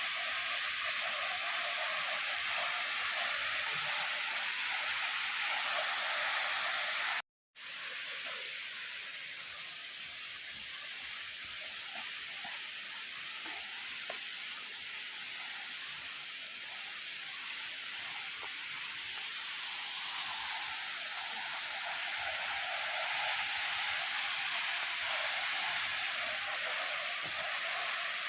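Waterfall water pouring and rushing in a steady hiss, cut off by a brief dropout about seven seconds in, then continuing slightly quieter.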